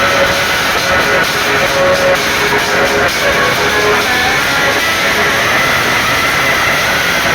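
Loud music played through a large DJ sound system during a sound check, dense and continuous without a break.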